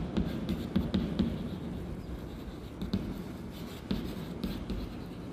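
Chalk writing on a chalkboard: irregular short taps and scratches as words are written out.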